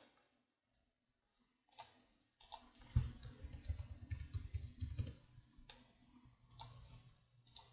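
Faint computer mouse clicks, single and spaced out, with a run of rapid keyboard typing in the middle lasting about two seconds as a password is entered.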